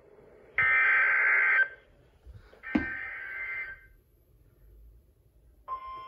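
NOAA Weather Radio SAME header coming through a weather radio's speaker: three harsh, buzzy digital data bursts about a second long, a second apart, the third fainter. Near the end the steady 1050 Hz warning alarm tone begins, the weekly alert test that follows the header.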